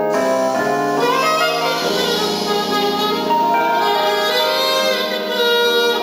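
Alto saxophone playing a slow melody of held notes, with other pitched instruments accompanying underneath.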